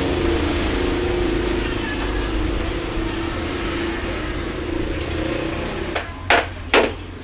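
A motor running steadily for about six seconds, then stopping, followed by two short, loud bursts of noise.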